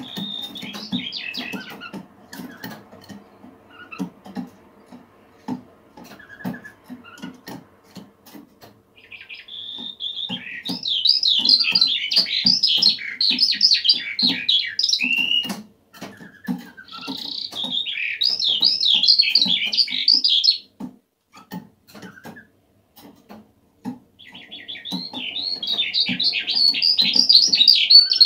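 Eurasian skylark singing: bursts of several seconds of rapid, high, trilling warble, with a short phrase right at the start, then song from about ten seconds in, again around seventeen seconds, and from about twenty-four seconds on. Soft low tapping sounds underneath.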